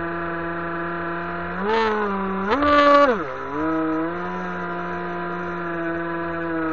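RC boat's motor running with a steady whine, its pitch rising briefly twice as the throttle is opened, then dropping back before holding steady again.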